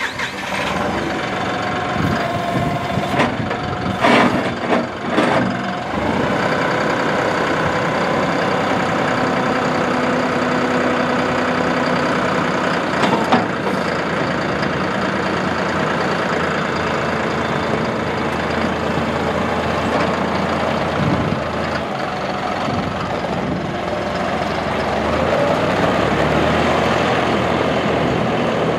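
John Deere 5075E tractor's three-cylinder turbo diesel running steadily while the loader is worked and the tractor drives off. A few sharp clunks come in the first several seconds and once more midway.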